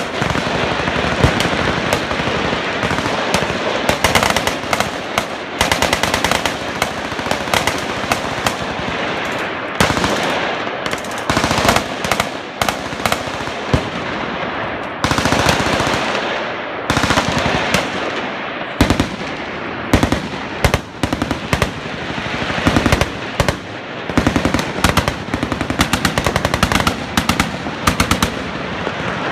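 Several machine guns firing on full automatic at once, their bursts overlapping into nearly continuous gunfire with only momentary lulls.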